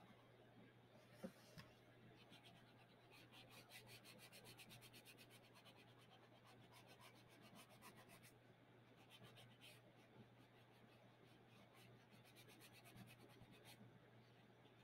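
Faint scratching of a wax crayon on sketchbook paper, in quick back-and-forth colouring strokes, over a low steady hum.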